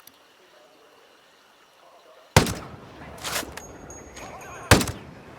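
Two sniper rifle shots about two and a half seconds apart, each a sharp crack with a short echo, and a smaller rattle between them.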